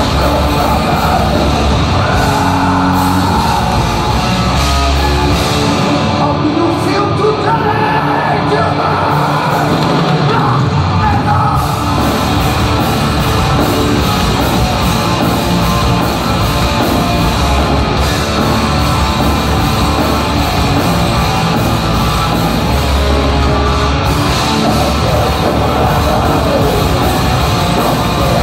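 Death metal band playing live: heavily distorted electric guitars and drums with harsh, shouted vocals over them, continuous and loud.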